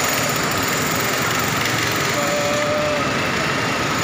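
Diesel engine of a Mercedes-Benz coach idling steadily, with a short steady tone of under a second about two seconds in.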